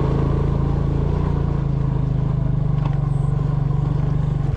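A small motor engine running steadily at an even speed, close to the microphone.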